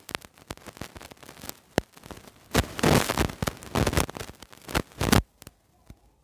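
Pen scratching across paper as a hand writes words, a quick irregular run of scratchy strokes that stops about five seconds in.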